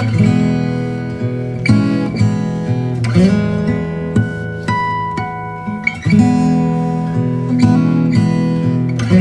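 Background music: strummed and plucked acoustic guitar, chords changing every couple of seconds.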